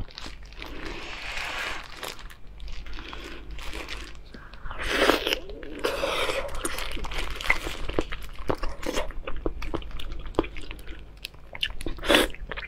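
Close-miked eating: biting into and chewing soft, fatty red-braised pork belly, with wet mouth clicks and smacks.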